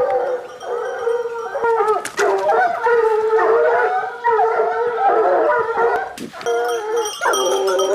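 A pack of hunting hounds baying on a wild boar's scent, several voices overlapping in drawn-out howling cries that carry on without a break.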